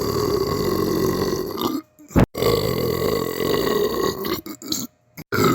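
A person belching, long drawn-out belches one after another. One runs through about the first two seconds, then comes a brief sharp pop. A second long belch lasts about two seconds, followed by a few short burps and the start of another near the end.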